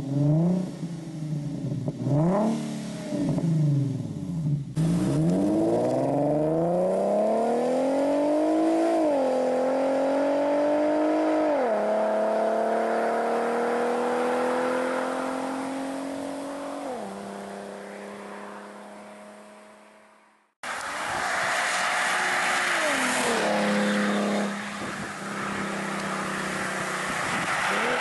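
Infiniti QX50's VQ37 3.7-litre V6 with the mufflers removed, blipped in a few quick free revs, then accelerating hard away through the gears. Its pitch climbs and drops at each upshift as the sound fades into the distance. After a cut it accelerates again through another upshift.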